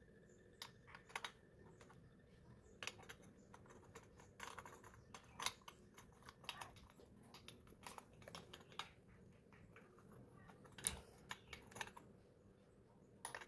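Faint, irregular clicks and light knocks of the parts of a Flair 58 manual espresso maker being handled and turned over in the hands, the sharpest knock about eleven seconds in.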